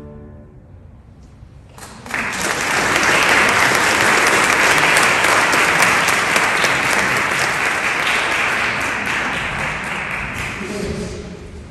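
Audience clapping, beginning about two seconds in, just after the choir's last chord has died away. It holds steady and fades near the end.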